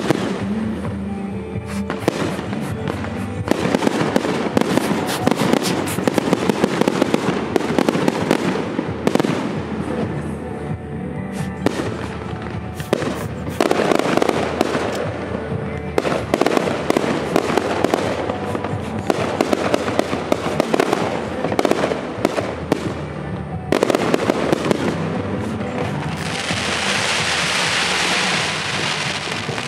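Aerial fireworks bursting in quick succession, with dense rapid crackling from the crackling-star shells and a sustained hissing crackle near the end. Music plays steadily underneath.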